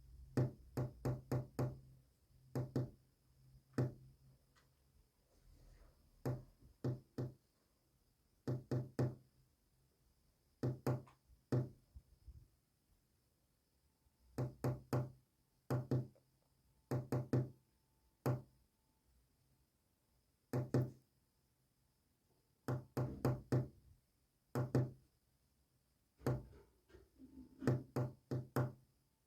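Knocking on a hard surface, in irregular groups of one to six quick knocks separated by short pauses: a code being tapped out, meant as Morse code.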